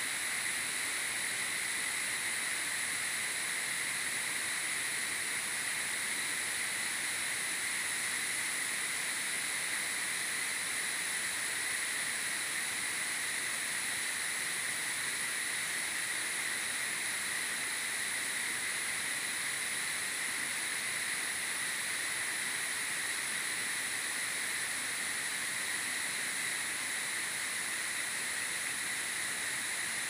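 Steady hiss of a tall waterfall pouring onto rocks, with insects droning in steady high tones over it.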